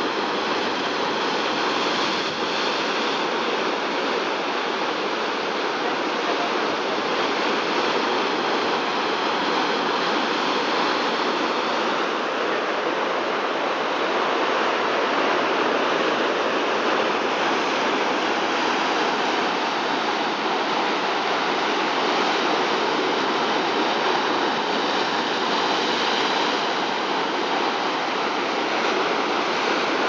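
Rough sea surf breaking and churning around coastal rocks: a steady rush of foaming water with no separate wave crashes standing out.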